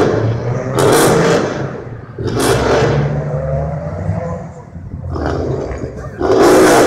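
BMW X5 4.4 V8 with a loud exhaust, revving over a low running drone. Three loud surges come about a second in, at two and a half seconds and near the end, and the pitch rises and falls in between.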